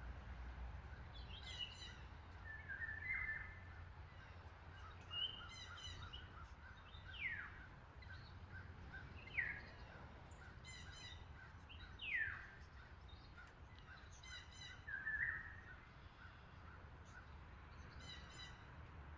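Several wild birds calling: a few harsh, steeply falling calls about every two to three seconds, mixed with trains of short high chirps, over a steady low rumble.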